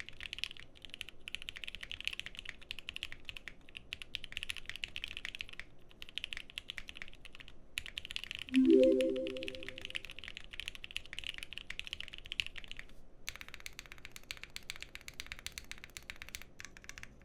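Typing on a mechanical keyboard: rapid clacking of lubed and filmed Gateron Black Ink switches on a POM plate, under GMK keycaps, with a few short pauses. Midway a brief pitched tone of about a second and a half rises above the typing as the loudest sound.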